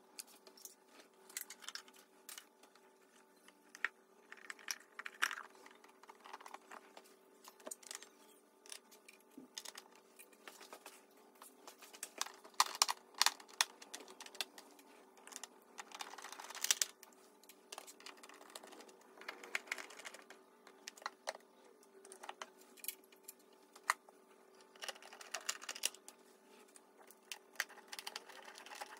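Irregular small clicks and taps of a hand tool and screws being fastened into the plastic airbox of a Triumph Daytona 675, with a few short bursts of rapid clicking.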